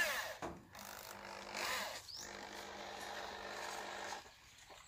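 Thin plastic sheeting of a small rocket's parachute rustling and crinkling as it is handled, with a few short squeaky sliding sounds, over a steady low hum.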